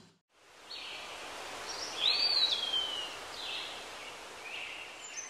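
Faint birds chirping over a steady hiss, with one call arching up and then sliding slowly down about two seconds in.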